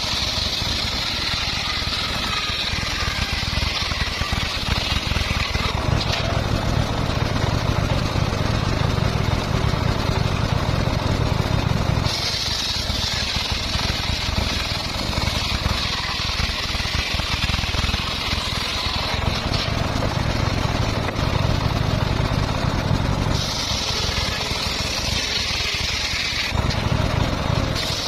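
Engine-driven circular saw running steadily, its blade cutting through stock in several long passes, each heard as a high singing tone over the engine's drone that fades when the cut ends.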